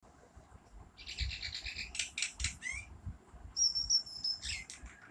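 Several songbirds singing and chirping: a fast trill of repeated notes, a few quick sweeping calls, then a held high whistle before more short chirps.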